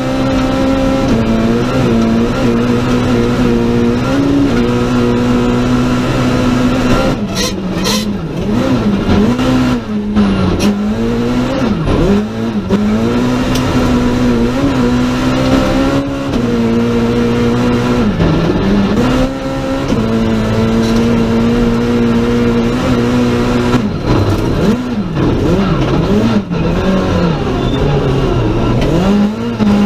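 Citroën C2 R2 Max rally car's engine, heard from inside the cabin, driven hard: it holds high revs steadily for long stretches with quick steps at gear changes, then rises and falls repeatedly as the car brakes and corners, about a third of the way in and again near the end.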